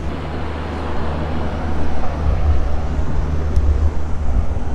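Passenger train coach running on the rails, a steady low rumble that grows louder about two seconds in.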